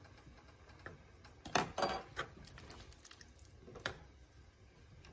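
A metal spoon and a silicone spatula stirring thick ground-beef and tomato meat sauce in a large pan. There is soft scraping, with a few sharp clicks and knocks of utensil against pan: a cluster about a second and a half in and one more near four seconds.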